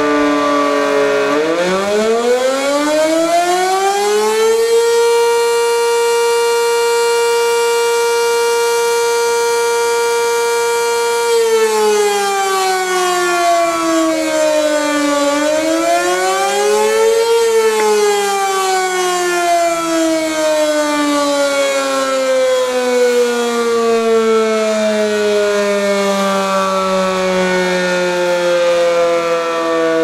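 Sentry 15V1T single-tone rotating tornado siren sounding the attack signal in a routine test. It winds up and holds a steady tone for about seven seconds, slides down, climbs part way again, then winds down slowly after being cancelled. The siren sounds healthy.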